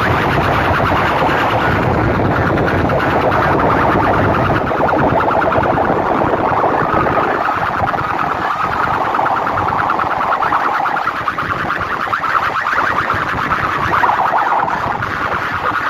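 Banks of metal horn loudspeakers on a competition sound rig blasting a loud, distorted, siren-like electronic wail with a fast pulsing buzz, its pitch drifting slowly.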